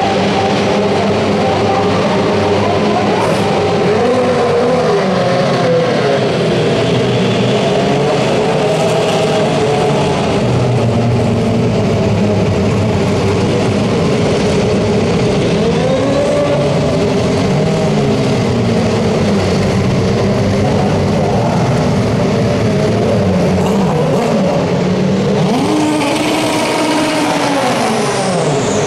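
Super Formula SF23 race cars' Honda turbocharged two-litre four-cylinder engines running at low speed, their notes rising and falling with repeated throttle blips. Near the end one car accelerates away, its note climbing and then dropping.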